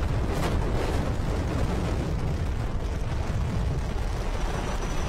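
Falcon 9 rocket's first stage, nine Merlin engines, running at full thrust during ascent: a steady, crackling low rumble.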